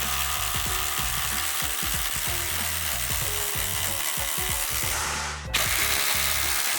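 Cordless impact driver hammering as it drives a structural screw into OSB, a steady rapid rattle that stops briefly about five seconds in and starts again. Background music with a bass line runs underneath.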